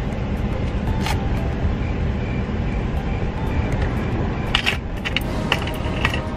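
Van engine idling with a steady low rumble, heard inside the cab, with a few light clicks and clinks about a second in and again near the end.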